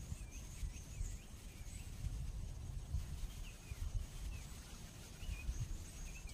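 Outdoor ambience: faint, warbling bird calls come and go over a low, uneven rumble of wind on the microphone.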